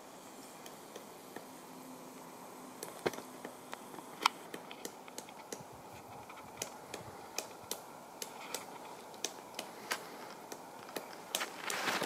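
Pileated woodpecker chiselling into an old tree while foraging for food: irregular, sharp knocks of its bill on the wood, a few a second, coming faster and louder near the end.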